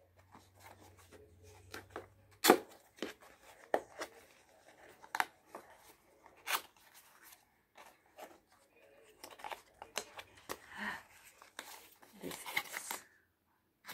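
Small cardboard box being opened by hand: several sharp snaps and tearing sounds as its flaps are pulled apart, then softer rustling of the packaging near the end.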